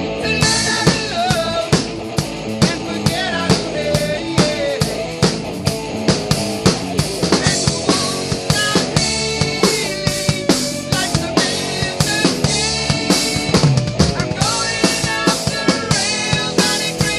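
Rock drum kit played to a heavy metal backing track: a driving beat of bass drum, snare and cymbals, with electric guitar lines over it.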